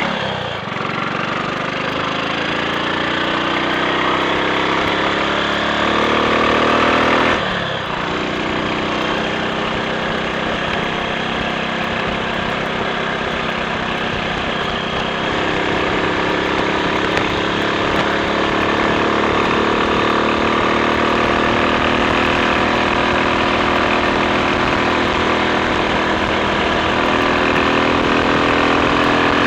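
Triumph Sports Cub's single-cylinder four-stroke engine running under way. Its note rises steadily, breaks off briefly as the gear is changed, then settles and holds steady with a small rise partway on.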